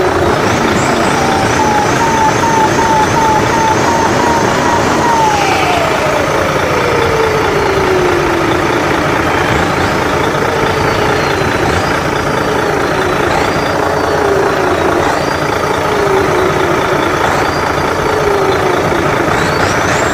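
Big RC truck's onboard sound system playing a loud simulated truck engine with a turbo whistle. A held whine glides steadily down about a quarter of the way in, then a high whistle rises and falls over and over, every second or two.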